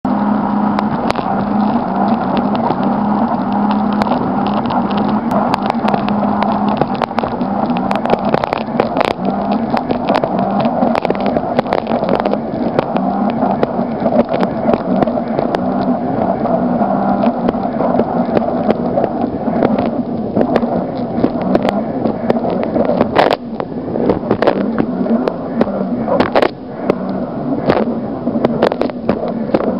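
Personal watercraft engine running steadily at full speed, a constant drone under rushing wind and water. Sharp knocks and splashes come often, more so from about eight seconds in, as the hull and spray hit rough chop.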